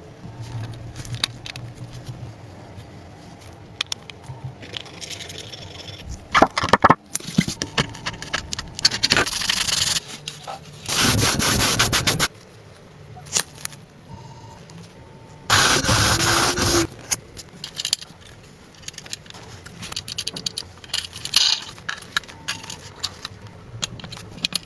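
Workshop work on a car body: rubbing and scraping with scattered clicks and knocks, and two louder spells of sanding-like noise, each lasting about a second and a half.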